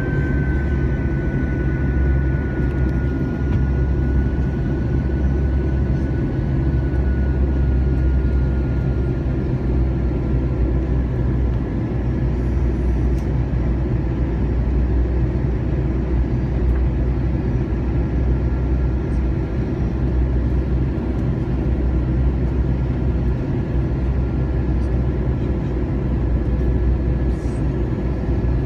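Steady, continuous drone of a running vehicle engine, with a faint high tone that slowly drops in pitch during the first several seconds.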